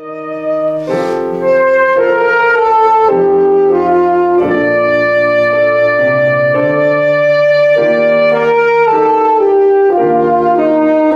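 Alto saxophone playing a slow melody of long held notes, accompanied by grand piano chords; it comes in softly and grows louder over the first second and a half.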